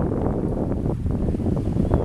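Wind buffeting the microphone: a loud, uneven low rumble with no pitch to it.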